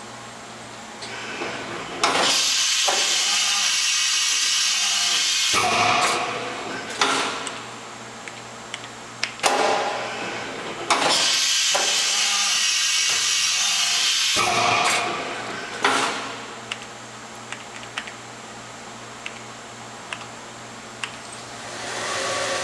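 Two long hisses of rushing air, each about three and a half seconds, with scattered clicks and knocks between them. Near the end a steady machine hum rises.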